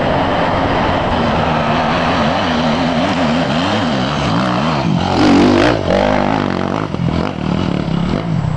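Off-road motorcycle engine coming down a steep dirt trail, its revs rising and falling quickly as the rider works the throttle. It grows loudest about five seconds in as the bike nears.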